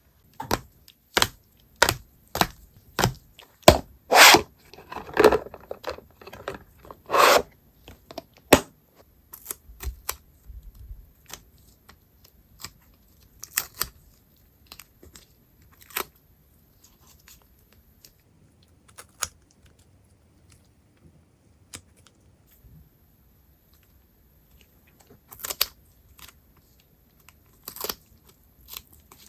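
Packing noises from wrapping acrylic goods: a quick run of sharp clicks, then a few longer tearing strokes from about four to seven seconds in, then scattered clicks and rustles of packaging.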